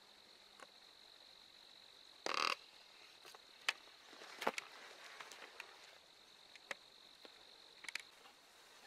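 Handling noise from the hunter moving in a tree stand: a brief loud rustle about two seconds in, then several sharp clicks and knocks. A steady high-pitched drone runs underneath.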